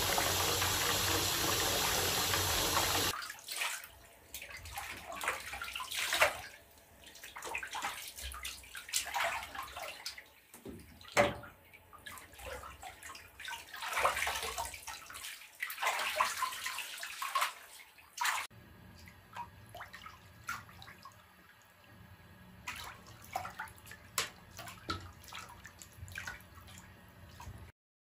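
Bath tap pouring water into a tub in a steady stream, which cuts off about three seconds in. It is followed by irregular splashes and swishes of bathwater as someone washes with a mesh bath sponge.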